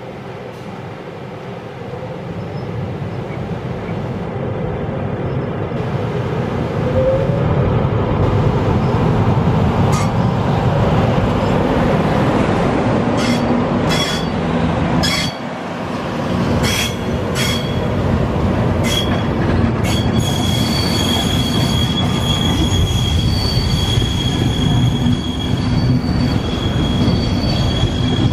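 FS Trenitalia Class E444R electric locomotive pulling away from the station and passing close, growing louder over the first several seconds, followed by its passenger coaches rolling by. Sharp wheel clicks come in a run near the middle, and a steady high-pitched wheel squeal sets in about two-thirds of the way through.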